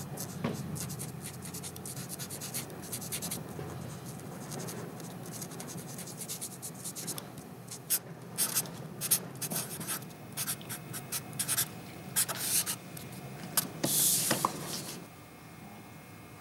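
Pen strokes scratching across drawing paper while inking a sketch, then a felt-tip marker signing a name in quick, louder separate strokes that stop about a second before the end.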